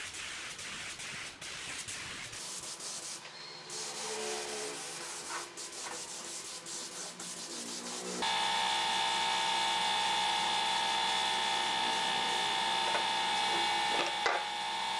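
A compressed-air spray gun hissing as it sprays finish onto wood. About eight seconds in, a louder steady machine hum with a high whine starts and holds. Near the end there is a knock as the wooden chair is turned over on the bench.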